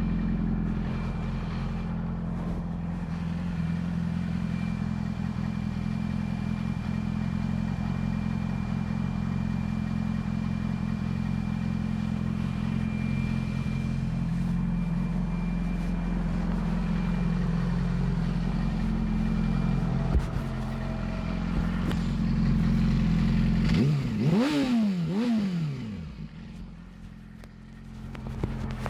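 2008 Yamaha R6's inline-four engine through a Termignoni exhaust, running steadily at low revs, with a quick throttle blip about three-quarters of the way through that rises and drops back within a couple of seconds.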